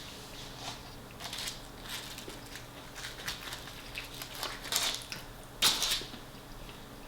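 Close-up eating sounds: fried chicken bitten and chewed, with a few short crunches, the loudest about five and a half seconds in.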